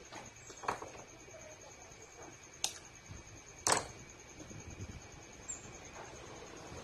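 Hands handling insulated wires on a workbench: light rustling with three sharp clicks or taps, the loudest a little under four seconds in. A faint steady high whine sits underneath.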